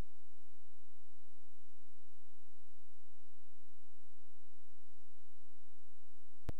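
A steady electronic tone held at one pitch with a few fainter overtones, unchanging in loudness, with a couple of faint clicks.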